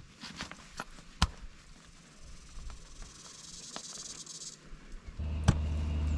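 Scattered sharp knocks and clicks of food and utensils being handled, the loudest about a second in, with an insect buzzing high for about a second and a half midway. A steady low hum starts abruptly near the end.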